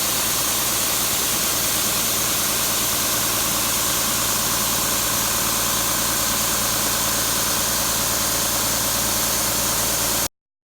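A heavy engine running steadily with a constant hum and hiss, cutting off abruptly about ten seconds in.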